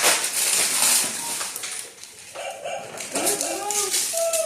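Gift wrapping paper rustling and tearing, followed about two seconds in by a few short, high-pitched whining vocal sounds.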